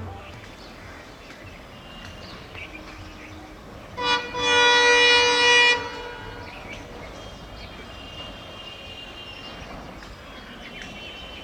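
Indian Railways train horn: a short toot, then a longer blast of about a second and a half, over a quiet outdoor background.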